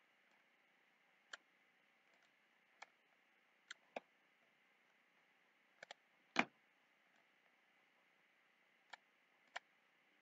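Computer mouse clicking: about nine faint, sharp clicks at irregular intervals, with one louder click about six seconds in, against a faint room hiss.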